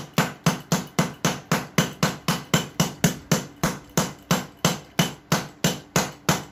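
Rapid, steady hammer blows, about four a second, smashing a Type-C phone charger on a tile floor.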